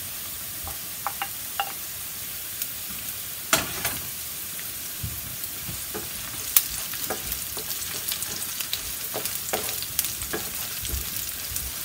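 Chopped onion and green chilies sizzling in oil in a non-stick frying pan while a wooden spoon stirs them, its knocks and scrapes against the pan coming as scattered clicks and taps over a steady frying hiss.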